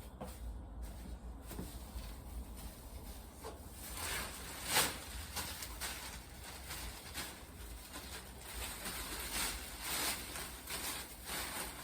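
Irregular rustling and scraping from something being handled, a string of short swishes with the loudest about five seconds in.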